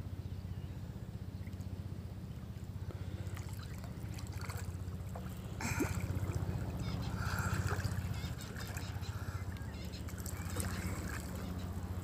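Water splashing and sloshing as a swimmer rolls over from floating on her back and starts swimming, with a sharp splash about six seconds in and a couple of seconds of stroke splashing after it, over a steady low hum.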